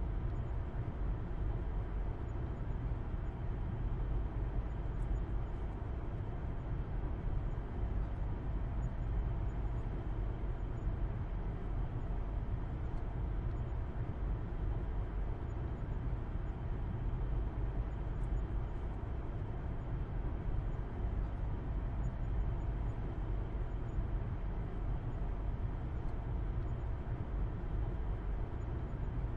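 Steady road and engine noise heard from inside a moving car's cabin: a low, even rumble that does not change.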